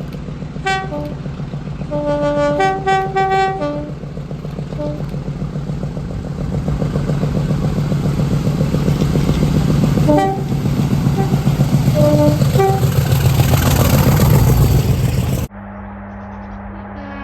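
Train air horn sounding a chord of several notes in a quick series of short blasts, then a few more short blasts about ten seconds in, over the loud heavy rumble of the train. The rumble builds with a rising hiss, then cuts off suddenly near the end to a steady low hum.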